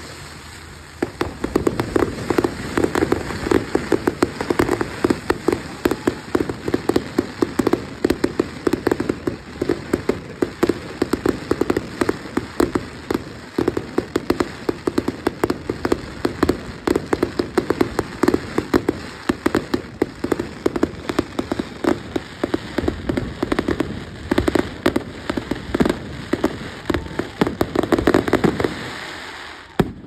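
Fireworks going off in a dense, continuous run of rapid crackles and bangs, which cuts off suddenly at the end.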